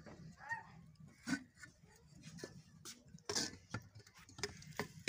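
Scattered light clicks and knocks of cooking utensils being handled, irregular and a second or so apart, over a faint low hum.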